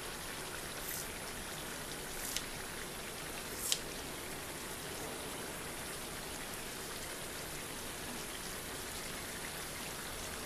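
Prawn curry simmering in a pan on low heat, a steady bubbling hiss. Three short sharp clicks in the first four seconds, the last the loudest, from kitchen scissors snipping coriander leaves over the pan.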